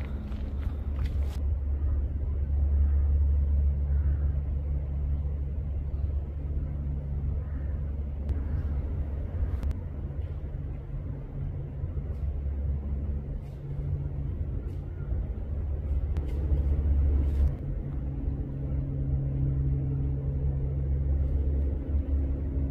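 Steady low engine rumble of machinery working on the hillside, with a few faint clicks over it and a higher hum joining in near the end.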